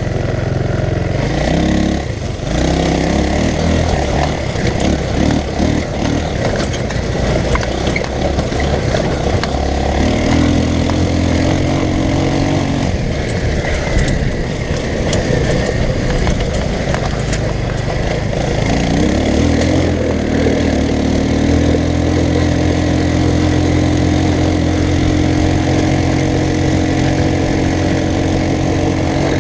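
Off-road go-kart engine running under way, speeding up and easing off several times. It holds a steady higher speed for a few seconds near the middle, then again through the last third.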